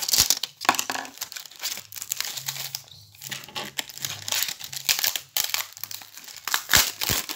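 Thin plastic packaging of a pen pack crinkling and crackling irregularly as it is handled and pulled open by hand, with a few louder rustles near the start and near the end.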